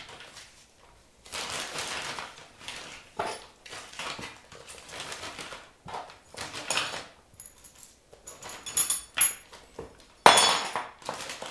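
A clear plastic bag crinkling as small metal furniture fittings are picked up off a wooden floor and dropped into it, clinking against each other. A louder crackle comes near the end.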